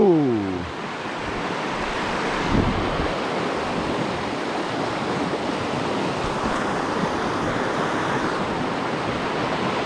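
Steady rushing of fast river rapids, with some wind on the microphone.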